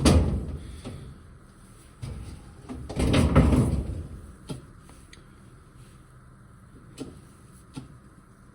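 Clunking and rattling from a hand oil pump being worked to put fresh oil into the engine: one loud burst right at the start, a longer one about three seconds in, and a few small clicks in between and after.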